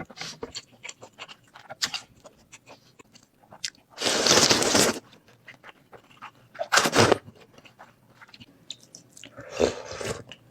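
Close-miked eating of noodles: chewing with crunchy bites and many small wet mouth clicks. Three louder slurps stand out, the longest about four seconds in and lasting about a second, with shorter ones near seven seconds and near the end.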